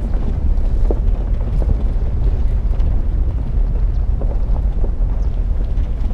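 Car driving slowly on a gravel road: a steady low rumble of engine, road and wind noise on the microphone, with scattered small clicks of stones under the tyres.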